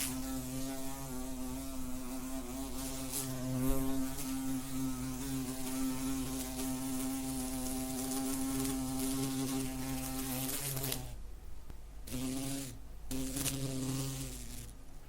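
A wasp flying, its wings making a steady, slightly wavering buzz. After about eleven seconds the buzz breaks off, comes back twice briefly, and stops shortly before the end.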